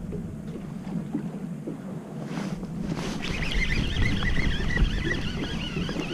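Wind buffeting the microphone over the low rumble of a boat on the water. About three seconds in, a wavering high-pitched tone joins it.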